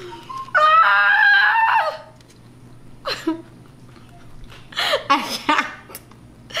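A woman's high-pitched squeal, about a second and a half long, in reaction to the burn of a very hot chicken wing, followed by short bursts of laughter.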